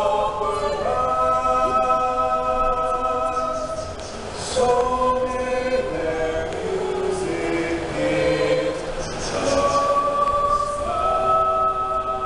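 A small mixed choir singing a slow piece in harmony, holding long chords that move from one to the next; a new chord comes in about eleven seconds in and is held.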